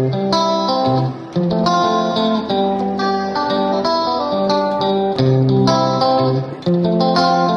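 Instrumental intro music: a guitar playing a melody of plucked notes over a bass line.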